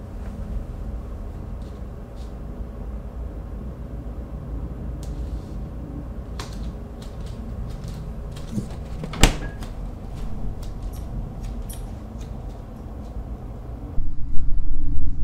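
Low steady hum with scattered light clicks and one sharp knock about nine seconds in, like a cupboard or door shutting. Near the end it cuts abruptly to a much louder steady rumble of street ambience.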